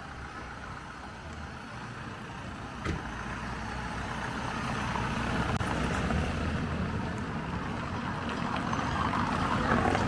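A road vehicle, engine and tyre noise growing steadily louder as it draws near, with one sharp click about three seconds in.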